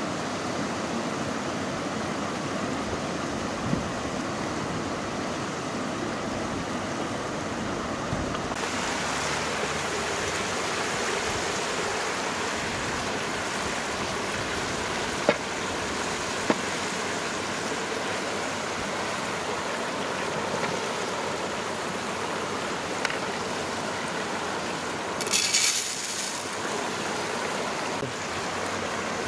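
Steady rushing of a shallow mountain stream over rocks, turning brighter about eight seconds in. Two sharp clicks near the middle and a brief clatter near the end.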